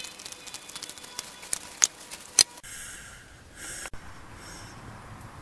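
Irregular metal clicks and clinks of a wrench working on a small engine, with two sharper clinks about two seconds in. Soft bursts of hissing noise follow.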